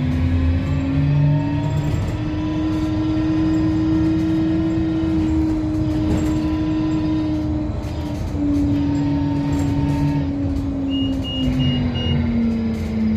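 Škoda 25Tr Citelis trolleybus under way, heard from inside the passenger cabin: the electric traction drive whines, rising in pitch as the trolleybus picks up speed, holding steady, then falling as it slows near the end, over knocks and rattles from the body. A short run of high beeps sounds about eleven seconds in.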